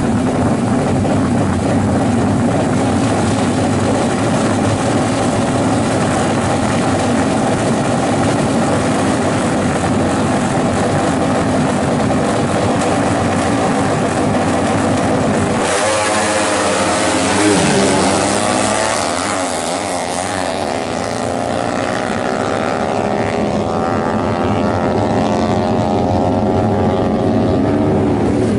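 Drag-racing motorcycle engines running loud and steady at high revs; just past halfway the sound changes abruptly, and the engine note sweeps down and up repeatedly as the bikes rev and accelerate.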